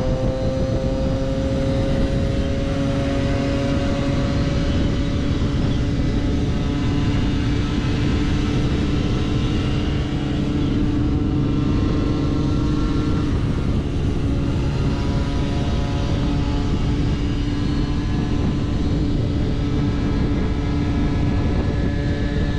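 Moped engines running at steady cruising speed, heard from on board one of them, with a low wind rumble on the microphone. A second engine note rises slightly over the first few seconds as nearby mopeds ride alongside.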